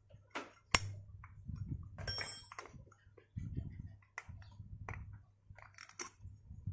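Metal parts and hand tools clinking and knocking as scooter parts are refitted: a sharp knock just under a second in, a brief metallic ring around two seconds, and scattered lighter clicks.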